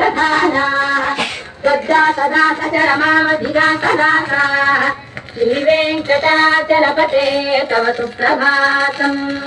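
A song with a high singing voice, played from a vinyl record on a Bush turntable. The sung phrases hold long notes and pause briefly about a second and a half in and again about five seconds in.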